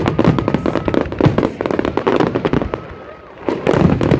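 Fireworks display going off in rapid succession: dense crackling bangs, easing for a moment about three seconds in before building up again.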